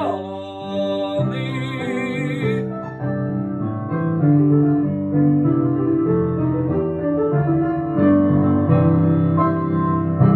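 Piano playing the closing bars of a song accompaniment, a run of changing chords and notes. In the first couple of seconds a sung note held with vibrato ends.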